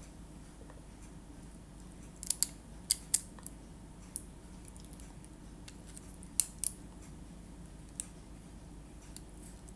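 Scattered small, sharp clicks and taps, about ten of them in small clusters, from handling a small LiPo battery and the tool used to measure it.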